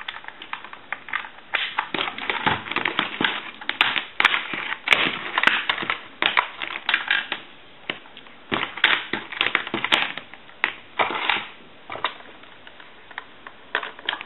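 Irregular plastic clicks, knocks and short scrapes from an AT&T 210 Trimline telephone and its cord being handled as the cord is installed.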